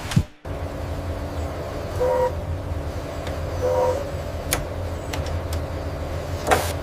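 Steady low hum of heavy factory machinery, with two short two-pitched beeps or horn toots about two seconds in and again near four seconds, and several sharp metallic knocks, the loudest near the end.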